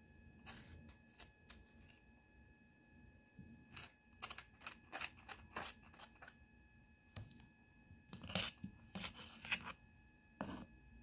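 Kitchen knife scraping soft avocado flesh out of the skin in short scratchy strokes, a quick run of about four a second in the middle, then a few more scrapes near the end.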